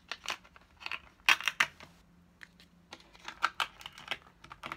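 Gold eyelash packaging boxes being handled as lashes are set inside: a run of light taps and clicks with some rustling, busiest about a second and a half in and again past the middle.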